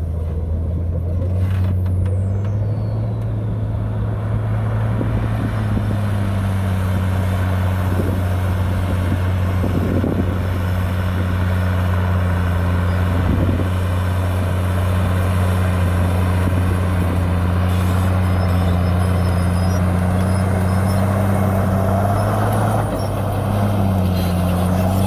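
Heavy earthmoving machine's diesel engine running steadily under load, with a brief dip in pitch near the end.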